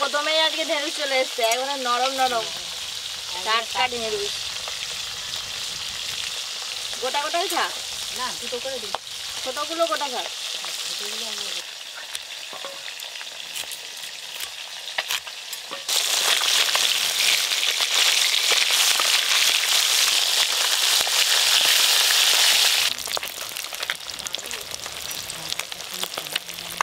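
Whole small pond fish frying in hot mustard oil in a kadai: a steady sizzle that swells much louder for about seven seconds past the middle, then drops back.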